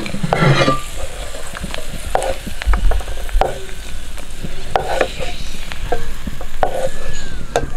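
Metal spoon scraping and clicking against a nonstick kadai and a ceramic bowl as fried cashews and raisins are scooped out of hot ghee, over a steady soft sizzle of the ghee.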